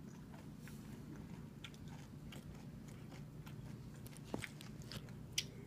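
Close-up chewing of M&M candies: faint, scattered crunching of the candy shells, with a couple of sharper clicks near the end, over a steady low hum.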